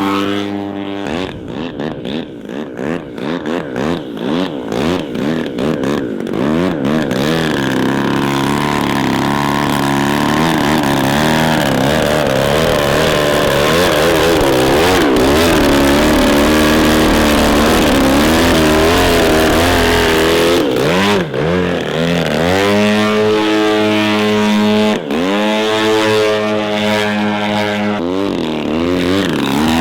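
Petrol piston engine of a large radio-controlled model aeroplane in flight, its pitch swinging up and down repeatedly as the throttle and the plane's passes change, then a long downward glide in the middle and a steadier, higher note near the end with two brief drops.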